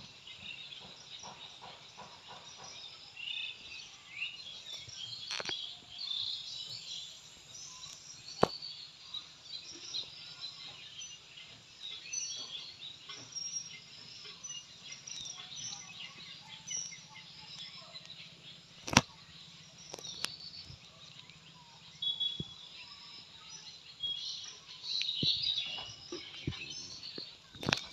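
Small birds chirping and twittering throughout, with a few sharp clicks from hands handling a small electric water pump, the loudest about eight and a half and nineteen seconds in.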